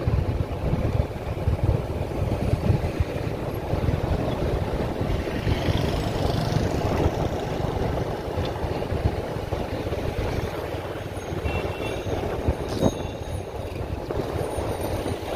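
Street traffic heard from a moving vehicle: motorcycle and car engines under a steady low rumble of wind and road noise on the microphone.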